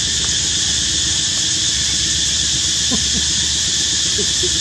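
Steady high-pitched drone of insects, with a few faint short squeaks about three and four seconds in.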